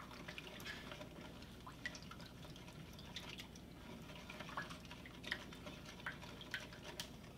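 Wooden spoon stirring a thin molasses-and-sugar liquid in a stainless steel bowl to dissolve it: faint sloshing with many small scattered clicks and taps of the spoon against the bowl.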